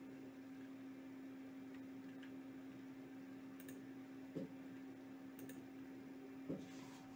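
A couple of faint computer mouse clicks, about two seconds apart, with a few fainter ticks, over a steady low electrical hum.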